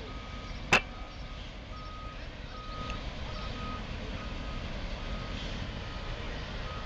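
Reversing alarm on a Liebherr LTM 1500-8.1 mobile crane beeping at one steady pitch, about once every 0.8 seconds, over the low running of the crane's diesel engine as it backs up slowly. A single sharp click, the loudest sound, comes just under a second in.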